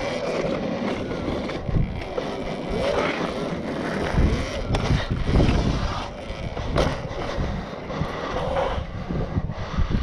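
Wind buffeting the microphone on a moving Apollo RFN electric dirt bike, with a pitched whine that rises and falls several times.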